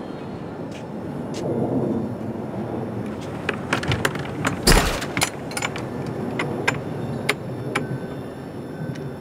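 A padlock being opened and worked off a metal hasp on a wooden door: a run of sharp metallic clicks and clanks, the loudest a heavy clank about halfway through. A steady low background rumble sits under it.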